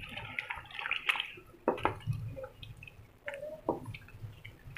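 Chicken pieces in a thin, watery gravy being stirred in a cooking pan with a wooden spatula: irregular wet squelching and slopping, with a couple of sharp knocks against the pan.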